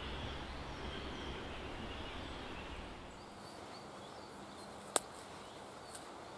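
Steady outdoor forest background, which drops to a quieter hiss about three seconds in. Just before five seconds, a single sharp click as a knife is drawn from its leather sheath.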